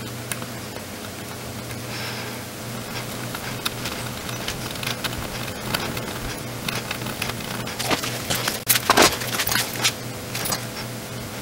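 Soldering iron and tweezers working flux-covered pads on a circuit board: scattered small clicks and crackles, with a burst of louder crackling about nine seconds in, over a steady low electrical hum.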